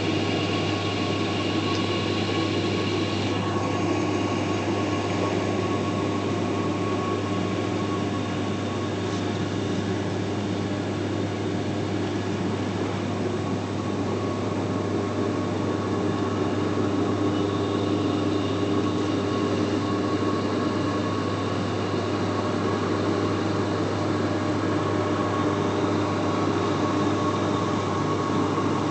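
AquaCannon aeration system running: a steady machine drone with a strong low hum and several constant whining tones above it.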